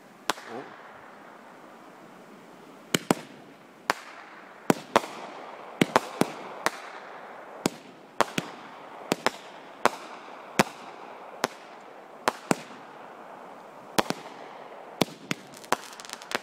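Aerial fireworks going off: a long run of sharp bangs at irregular intervals, some in quick pairs, over a steady hiss.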